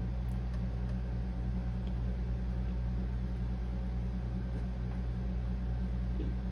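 Microwave oven running, a steady low hum.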